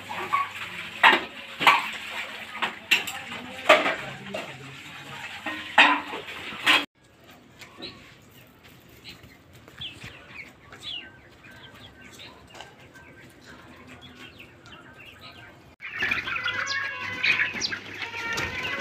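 A flock of desi chickens clucking and calling, with sharp clattering knocks among the calls for the first several seconds. About seven seconds in the sound drops to faint scattered clucks, then near the end many hens call loudly at once.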